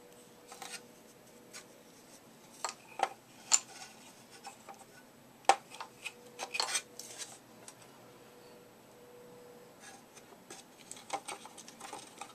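Plastic and metal parts of a Swivel Sweeper being handled as its small electric motor is worked in its plastic housing: scattered clicks, taps and rubbing, with a few sharper knocks and a busy cluster of clicks in the middle.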